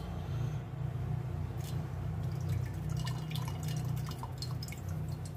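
Steel spoon scooping oily mango pickle in a steel bowl and transferring it into a ceramic jar: wet drips and plops with light clicks and taps, coming thicker in the second half, over a steady low hum.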